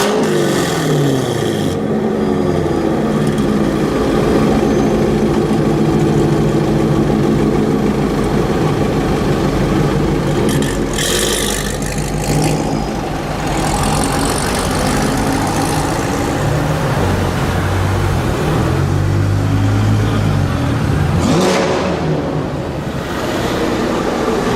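Loud Corvette engines revving and pulling away, their pitch falling at the start and rising and falling again later on.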